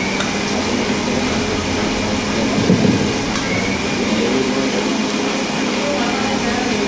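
Hot oil sizzling steadily in an iron kadai as a panful of rice-flour and moong dal chekkalu deep-fries, with a steady low hum beneath.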